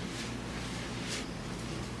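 Two soft rustles of clothing fabric being handled, over a low steady hum.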